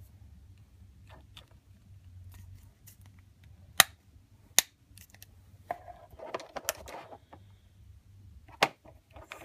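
Sharp plastic clicks as a replacement chip is pressed and snapped onto a clear refillable ink cartridge for an Epson printer: two loud clicks under a second apart near the middle, softer plastic handling after, and one more click near the end.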